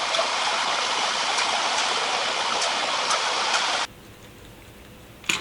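A steady, even hiss of noise, like rain or rushing water, that cuts off abruptly about four seconds in. It gives way to faint room tone and a single click at the end.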